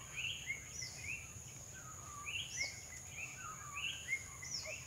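Birds chirping and calling in woodland: many short chirps and falling whistled notes overlapping, over a faint steady high-pitched whine.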